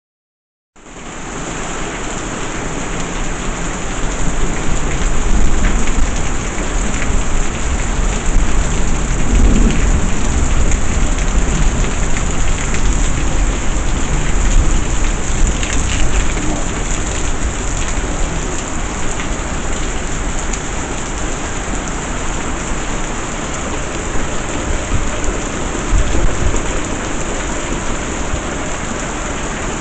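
Heavy rain falling hard, a dense steady hiss that starts just under a second in and is loudest in the first half, with a deep uneven rumble underneath.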